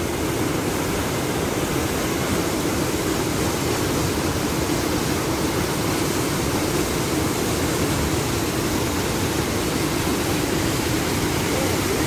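Narada Falls' whitewater rushing steadily down the rock cascade, heard at close range as a constant even roar of falling water.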